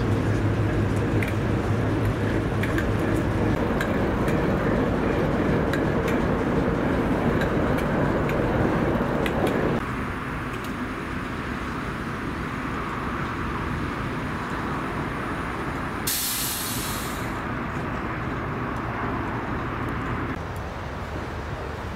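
Diesel locomotive engine running, loud at first and then dropping abruptly to a quieter, steady running about ten seconds in. About 16 seconds in there is a short, sharp hiss of air, like an air brake venting.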